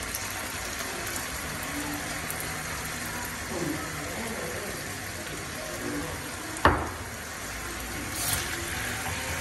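Sauce cooking in a pan on a gas hob, a steady hiss, while more sauce is poured in from a bottle and stirred with a wooden spoon. A single sharp knock comes about two-thirds of the way through.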